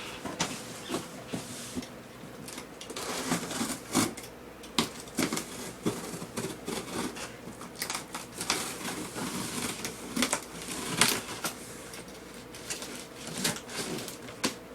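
Cardboard shipping box being opened and unpacked by hand: irregular rustling, scraping and knocks of cardboard and packing.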